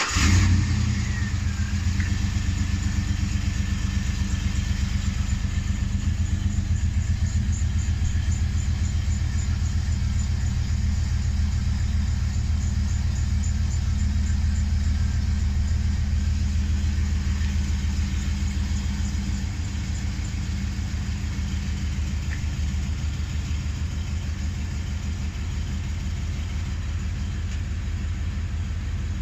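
2008 Hummer H2 SUT's V8 engine idling steadily just after starting, with a rhythmic low pulsing and a repeating "kuang, kuang" noise that the owner cannot identify. It settles slightly quieter about twenty seconds in.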